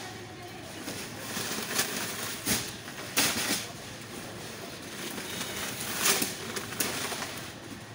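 Woven sacks of rice being handled and dropped onto a stack on a truck bed: irregular thumps and scraping rustles, several over a few seconds.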